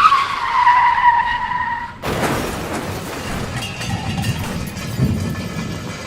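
Sound effect of vehicle tyres screeching in a hard skid for about two seconds, a squeal that drops slightly in pitch and cuts off abruptly. It is followed by a noisy, clattering crash-like stretch.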